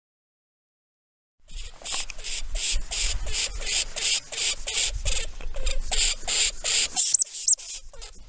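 Lemming calling: a rapid, even series of high, raspy squeaks, about three a second, starting after a silent gap about a second and a half in, with a couple of short thin whistles near the end.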